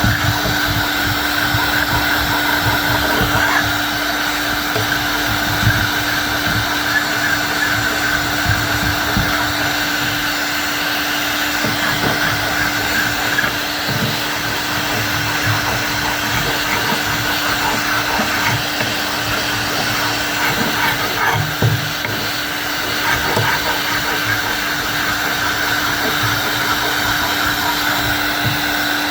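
A small electric tool motor running steadily throughout with a constant whine, and light irregular knocks underneath.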